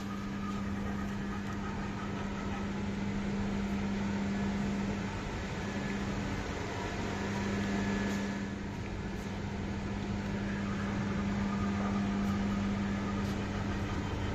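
Steady mechanical hum of building ventilation, a constant low tone over a soft rush of air.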